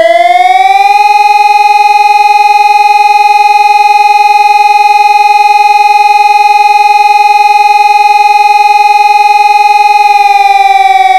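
Helin HES 600 electronic civil-defence siren sounding: its tone finishes rising about a second in, holds one steady pitch, and starts to fall near the end.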